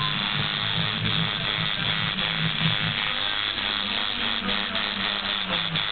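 Electric tattoo machine buzzing steadily, with music playing in the background.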